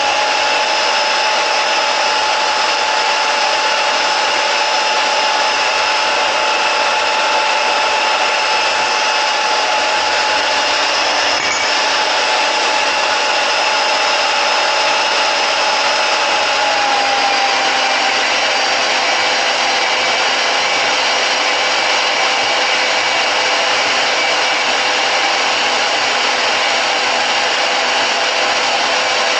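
Harbor Freight 10-amp deep-cut variable-speed portable band saw running steadily with its blade cutting through metal, a whining motor note that drops slightly in pitch a little past halfway.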